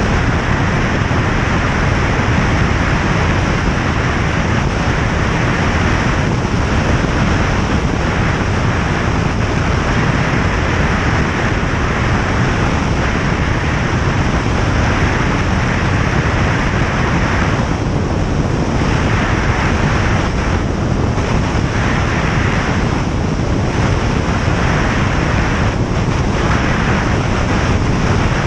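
Single-engine light aircraft in flight: steady engine and propeller noise mixed with the rush of airflow, loud and unbroken.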